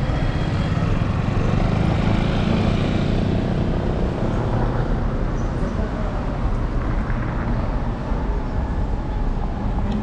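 Steady city street traffic noise with a constant low rumble, picked up from a moving electric scooter.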